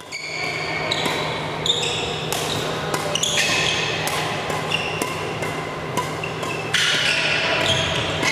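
Badminton rally in a sports hall: sharp racket strikes on the shuttlecock come every second or so, with frequent high shoe squeaks on the court floor between them. A steady low hum runs underneath.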